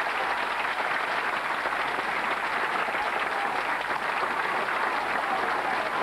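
Large grandstand crowd applauding, a steady dense clapping.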